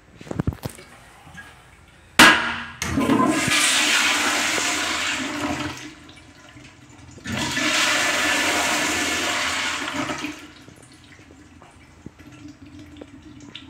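Commercial wall-hung toilets with tankless flush valves flushing twice. A sharp bang about two seconds in is followed by a strong rush of water for about three seconds. About a second and a half later a second flush rushes for about three seconds before settling to quiet refill trickling.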